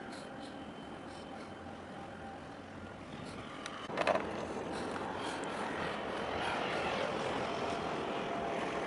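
Steady low hum and rush of a large container ship's engines and machinery passing, with a few faint steady tones. About four seconds in there is a single brief knock, after which a louder, even rushing noise takes over.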